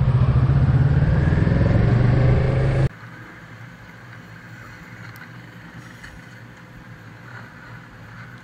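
Kawasaki Z650 parallel-twin motorcycle engine running steadily under the rider as the bike rides off. It cuts off abruptly about three seconds in, leaving a much quieter steady low hum.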